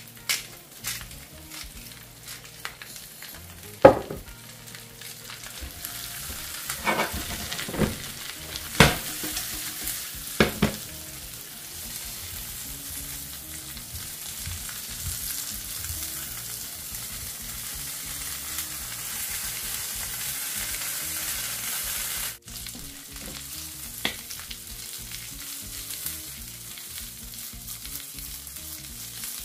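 Corn cobs frying in butter in a stainless steel pan: a steady sizzle that builds about six seconds in. A few light ticks at the start as salt is ground over them, and several sharp knocks as the cobs are turned in the pan.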